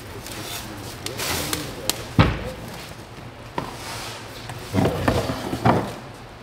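Plastic stretch wrap crackling as it is pulled and pressed around wooden furniture, with knocks of the furniture being handled. There is a loud thump about two seconds in, and a cluster of knocks and crackles near the end.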